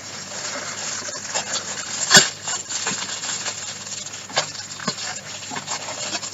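Plastic parcel packaging rustling and crinkling as it is handled, with a few sharper crackles, the loudest about two seconds in.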